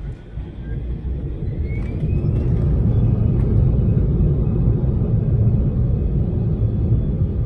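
Embraer E175's GE CF34 turbofan engines spooling up for takeoff, heard from the cabin beside the wing: a rising whine over the first two seconds or so, then a loud, steady rumble as thrust comes on for the takeoff roll.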